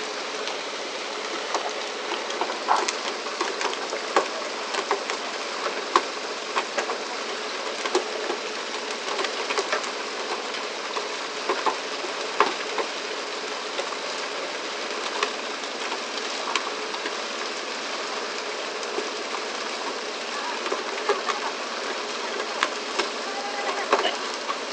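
Steady rush of the fishing boat's engine and the sea water along the hull, with frequent irregular knocks and slaps as tuna swung in on fishing poles land on the deck.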